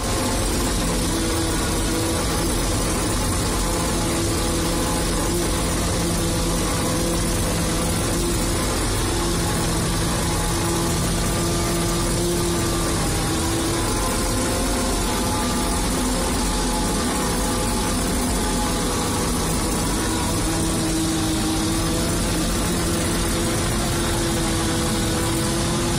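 Fortschritt E-281 self-propelled forage harvester running steadily under load while chopping maize, heard from inside the cab: an unbroken engine and machinery drone with a few constant tones.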